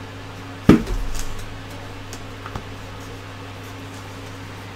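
Handling noise as a small camera and its charging cable are dealt with on a tabletop: one sharp knock just under a second in, followed by a brief low rumble, then a few faint clicks. A steady low electrical hum runs underneath.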